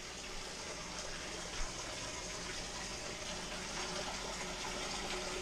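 Washing machine filling its tub in the fill stage before agitation: water pouring in through the inlet as a steady gush, growing a little louder toward the end.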